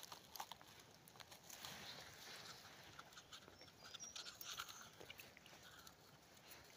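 Near silence, with faint scattered rustles and clicks.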